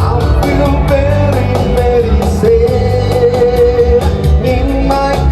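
Live band playing a song, with a steady beat under a melody line that holds one long note around the middle.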